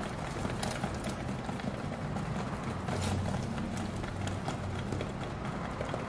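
Pigeons pecking feed off a metal fire-escape landing: scattered irregular taps over a steady low hum.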